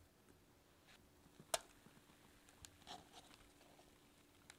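Quiet handling of cake batter: a silicone spatula working thick sponge batter in a stainless steel bowl, with a few light taps and one sharper click about a second and a half in.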